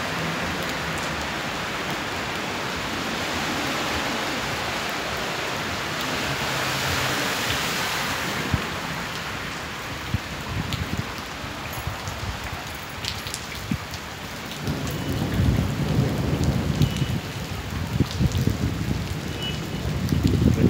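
Steady hiss of heavy rain, growing more uneven after several seconds, with bouts of low rumbling through the second half.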